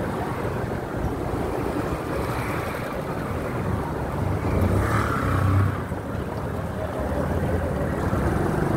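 Wind rumbling on the microphone of a camera on a moving bicycle, over the low noise of a slow line of car traffic. The rumble swells briefly about five seconds in.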